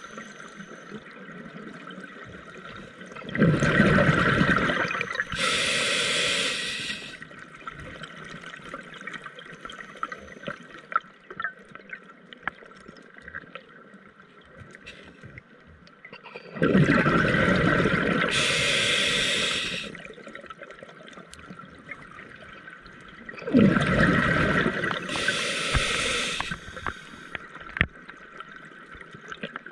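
Scuba diver breathing through a regulator underwater: three breaths about ten seconds apart, each a loud rush of exhaled bubbles that ends in a higher hiss. Between the breaths there is quieter bubbling with small clicks.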